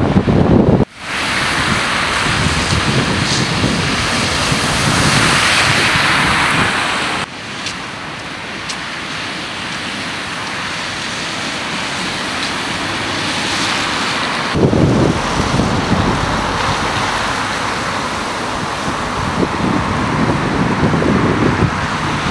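Cars driving through standing floodwater on a road, their tyres hissing and splashing through the water, with wind buffeting the microphone. The sound changes abruptly three times.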